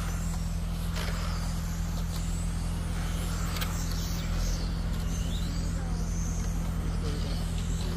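Radio-controlled race cars running on a track, their motors whining higher and lower as they speed up and slow down, over a steady low hum.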